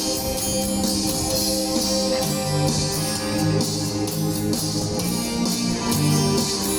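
Instrumental music: strummed guitar with a steady beat and a tambourine-like shimmer.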